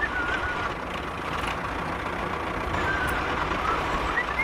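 Steady vehicle engine noise, with a few faint wavering high chirps over it.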